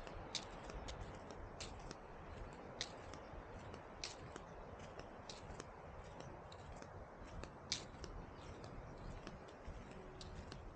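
Beach paddleball (matkot) rally: sharp wooden paddle hits on the ball at a steady pace of about one every 1.2 seconds, with fainter clicks between, over a low steady rush of noise.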